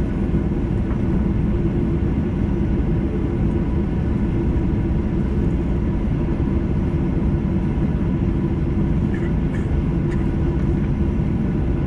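Steady low rumble inside a jet airliner's cabin with its engines at idle while it holds on the taxiway, with a faint steady whine above it.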